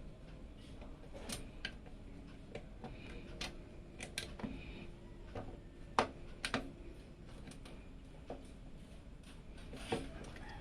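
Irregular light clicks and taps of computer hardware being handled and fitted, a dozen or so sharp ticks at uneven intervals, the loudest about six seconds in, over a faint low hum.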